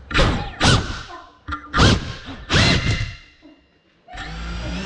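GEPRC Cinelog 35 cinewhoop's brushless motors and ducted propellers given about five short bursts of throttle, each whine falling away as the motors slow, with thuds among them. Near the end the motors settle into a steady whine.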